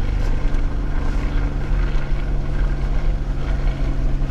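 Jeep Wrangler Unlimited driving at a steady pace: an even engine hum over a low rumble of tyres and drivetrain.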